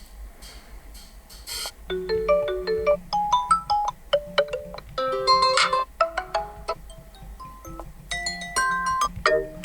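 Xiaomi 12T Pro ringtone playing: a melody of short, bright pitched notes that starts about two seconds in and runs in several phrases with brief gaps.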